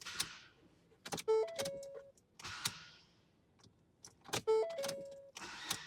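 A short pattern heard twice: a brief hiss, a quick pair of clicks, then an electronic chime of three stepped tones that settles on a longer held note. Another brief hiss comes near the end.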